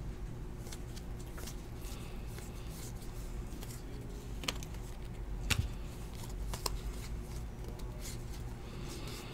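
Cardboard trading cards being flipped through by hand, the cards sliding and snapping against each other in light, crisp ticks, with three sharper clicks in the middle, the second the loudest.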